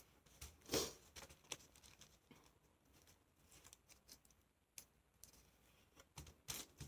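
Faint rustles and light taps of thin tissue paper being folded and creased by hand against a wooden tabletop, the loudest rustle under a second in and a few more near the end.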